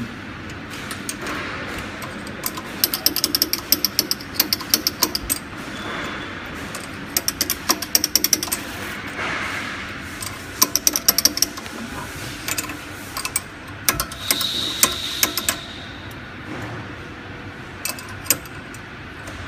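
A ratchet wrench clicking in quick runs, several times over, as the bag clamps of a pouch packing machine are adjusted by hand.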